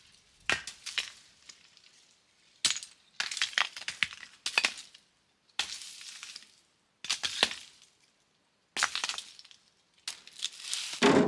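Stones clinking and clattering against each other as they are handled and set down, in several short separate bursts of sharp, gritty knocks.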